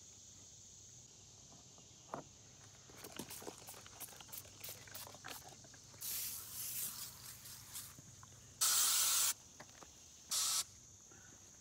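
Aerosol spray can of Cutter Backyard Bug Control hissing in two bursts: one of just under a second, then a short one about a second later. Before that come footsteps crunching on gravel, and a steady high insect drone runs underneath throughout.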